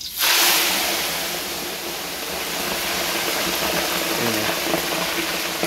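Raw frogs dropped all at once into hot oil in a steel wok: the oil bursts into a loud hiss, which settles into steady, vigorous bubbling and crackling as deep-frying begins.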